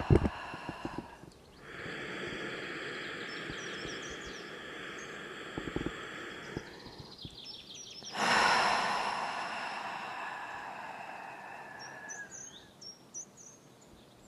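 A woman's slow, deep breathing: a long breath of about five seconds from about two seconds in, then after a pause a long, sighing breath out through the open mouth that starts strong and fades. A brief thump at the very start, and birds chirping faintly.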